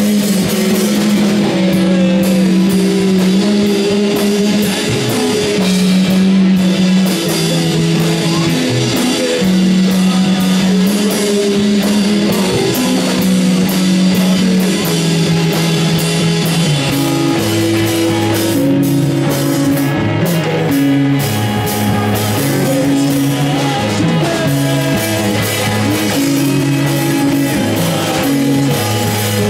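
Rock band playing live: electric guitar and bass over a drum kit, the low notes shifting to a lower, busier line about halfway through.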